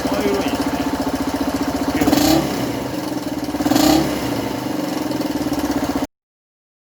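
Suzuki DF125 / Djebel 125 single-cylinder four-stroke motorcycle engine idling steadily on fresh oil, blipped twice briefly on the throttle. The sound cuts off abruptly near the end.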